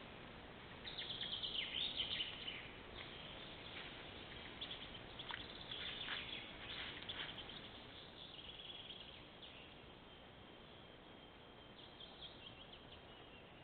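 Small birds chirping and twittering in scattered bursts over a steady hiss, with the busiest burst a second or two in.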